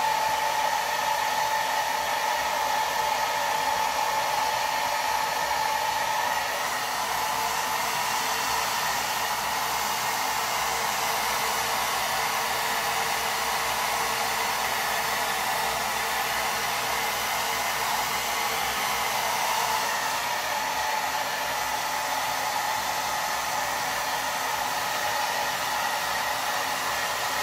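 Handheld hair dryer running steadily, blowing air onto a wet cat's fur. It makes a rushing noise with a high whine that fades about six seconds in.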